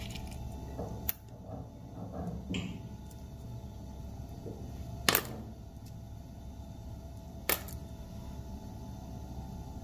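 Roasted coffee beans picked by hand out of a small stainless-steel dosing cup, sorting out unwanted beans: a few sharp clicks of beans knocking on the metal, about a second in, about five seconds in and again two seconds later, over a low steady hum.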